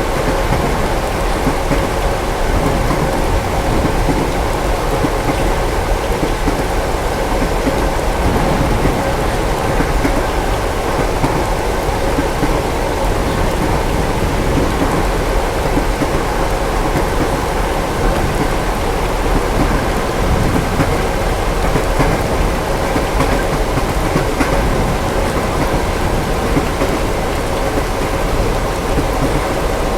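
Steady rain with a continuous low rumble beneath it, even throughout, with no distinct claps or pauses.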